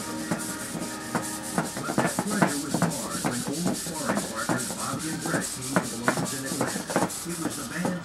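Micro hexapod robot walking on a plywood board: its cheap Hextronic micro servos whine in short rising and falling sweeps as the legs move, while the small metal feet tick and scrape on the wood.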